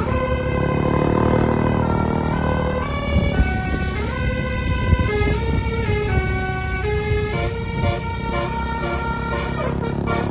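Bus basuri telolet horn, a multi-tone horn, playing a melody of held notes that step up and down every half second or so, with the bus's engine running underneath.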